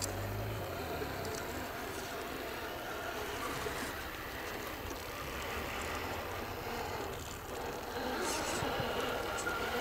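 Radio-controlled scale crawler trucks, including a 6x6, driving through loose dirt: the steady whine of their electric motors and geartrains, with a few sharp clicks near the end.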